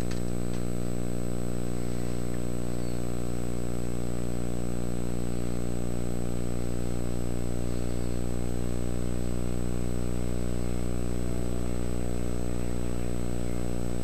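Steady electrical mains hum on the soundtrack of an old videotape: a low buzz of evenly spaced tones that holds unchanged, with a faint thin high whine above it.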